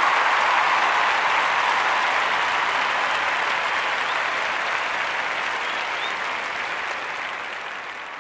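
Audience applause at the end of a live song recording, fading slowly away.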